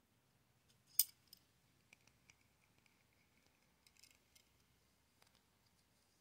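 Small clicks and scrapes of a steel trigger bar and polymer trigger shoe being handled and fitted in a C-clamp, with one sharp click about a second in and a few lighter ticks after it.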